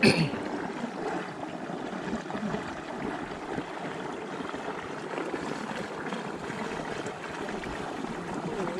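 Water running steadily, an even, continuous trickling rush.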